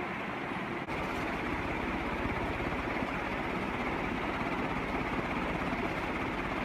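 TAT CF-5 48-inch industrial ceiling fan with three stamped steel blades running: a steady rush of air with motor hum. There is a brief break about a second in, after which it runs a little louder with a fast low pulsing.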